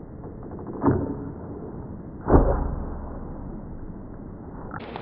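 Two muffled thumps about a second and a half apart, the second louder and followed by a low rumble, as the lightning-cable swing gives way under a person's weight.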